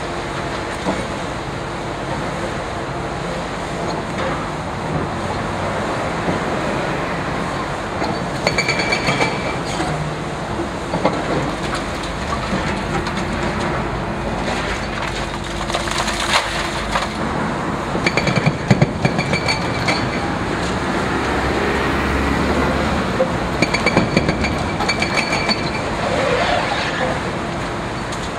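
Liebherr 954 high-reach demolition excavator running, its boom attachment breaking and crunching reinforced concrete cladding, with sharp cracks and falling debris loudest in the middle. High pulsing squeals come twice, about a third of the way in and again near the end.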